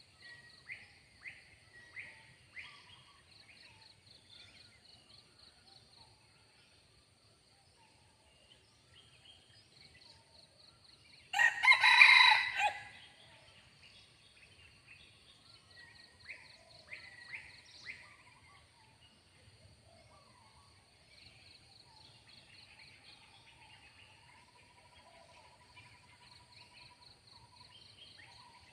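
A red junglefowl cock crows once, a short, loud crow about twelve seconds in. Faint bird chirps come and go around it over a steady pulsing insect buzz.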